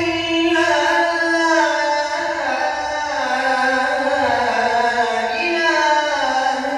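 A young man's solo voice reciting the Islamic call to prayer (ezan) in makam Uşşak, unaccompanied. He draws out long melismatic lines whose pitch drifts downward, with a fresh rise a little after five seconds in.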